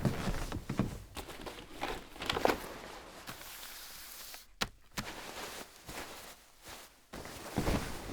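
Foley sound effects: an uneven run of soft scuffs and thuds, with a sharp click about four and a half seconds in.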